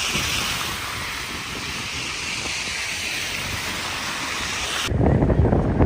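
Blizzard wind: a steady hiss for most of the stretch, then, about five seconds in, an abrupt cut to wind buffeting the microphone with a low, gusty rumble.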